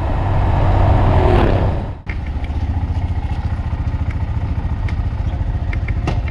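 Honda Monkey 125 minibike's single-cylinder engine running. It comes with a loud rush of noise that swells and stops abruptly about two seconds in, then settles to a steady low, even pulse.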